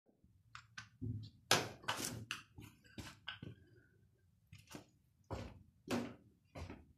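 Indesit washing machine knocking and thudding as it jumps about, in a series of irregular heavy knocks over a low rumble. The owner puts this down to bad drum bearings.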